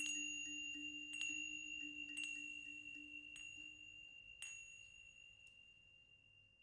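A high chime struck about once a second, six times, ringing the same bright note with each stroke. A low steady tone beneath it fades out about four seconds in, and the whole sound fades away toward the end.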